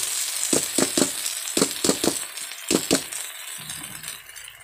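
Boiled basmati rice tipped from a plastic colander into a hot pan of ghee and fried onion: a sizzle that fades away over the last seconds, with about ten sharp knocks in the first three seconds as the colander is tapped against the pan.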